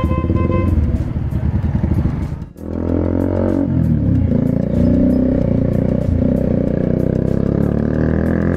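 Bajaj Pulsar 125 motorcycle with a loud aftermarket exhaust, ridden in traffic: the engine note holds steady, cuts out briefly about two and a half seconds in, then rises and falls with the throttle.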